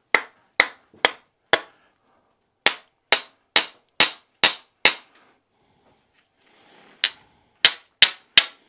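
Sharp metal knocks of a hand tool struck against a TaylorMade driver head to drive out a shaft adapter that is stuck fast in the hosel. About fourteen blows in three runs of four, six and four, roughly two a second, each brief with a short ring.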